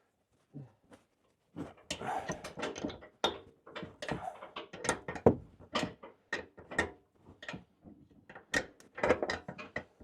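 Wrench, a ratcheting wrench among it, working the 18 mm nuts on top of a truck's front shock: a run of sharp, irregular metal clicks and knocks starting about a second and a half in.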